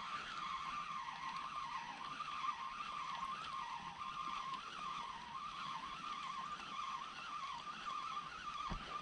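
Fishing reel being wound in on a lure retrieve: a steady whine that wavers up and down in pitch as the handle turns.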